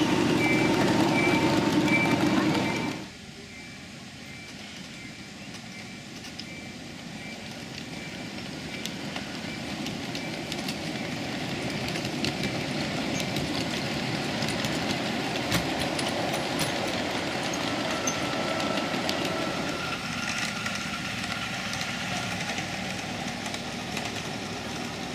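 Ride-on miniature railway trains rolling past on the track. For about the first three seconds a locomotive runs close by, loud and with steady tones. It then drops suddenly to a quieter, steady rolling noise with scattered clicks of wheels on rail, which slowly grows louder.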